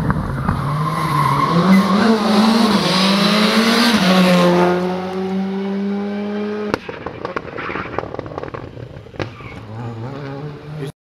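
R5 rally car's turbocharged four-cylinder engine at full throttle, its pitch climbing and dropping with gear changes, then holding one steady note. The sound cuts off abruptly about two-thirds of the way through, leaving a quieter engine and a few sharp cracks.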